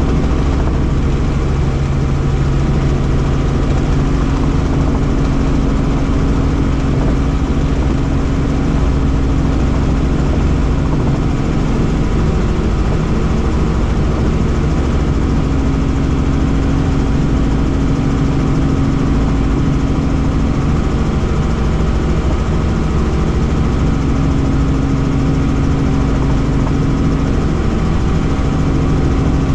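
Helicopter in flight: the steady, loud drone of its engine and rotor, with an even low hum and no change in pitch.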